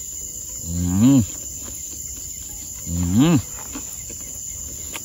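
A man's two short, rising hums with his mouth full while eating, about a second in and about three seconds in, over the steady chirring of crickets.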